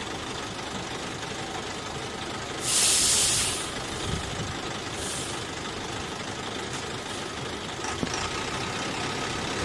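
Steady engine-like running noise. About three seconds in, a loud burst of hiss lasts about a second, and a shorter, fainter hiss follows around five seconds in.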